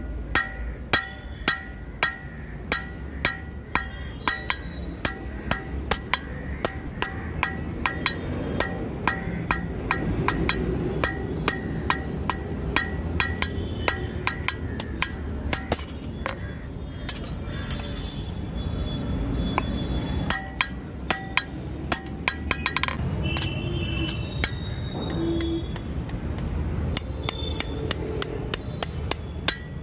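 Hand hammer striking hot leaf-spring steel on an anvil: steady blows about two a second, each with a ringing metallic clang, with a few short pauses.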